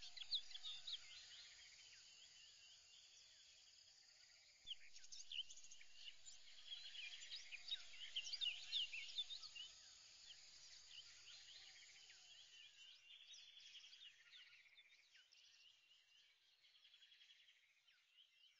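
Faint chorus of small birds chirping and twittering, many short rising and falling calls overlapping, a little louder in the middle and fading out near the end.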